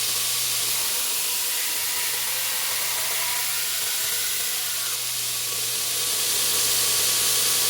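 Belt grinder running with a steady hiss from the abrasive belt and a steady low hum underneath, grinding the bevels of a knife blade in a bevel jig. Slightly louder from about six seconds in.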